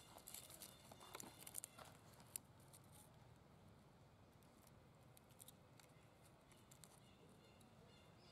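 Faint crackling and rustling of dry leaves handled by macaques, a flurry of sharp crackles in the first few seconds, then only scattered ones.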